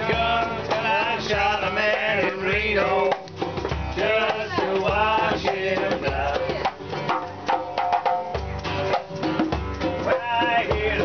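Live acoustic folk music: a strummed acoustic guitar and a djembe hand drum keeping a steady beat, with a sung melody over them.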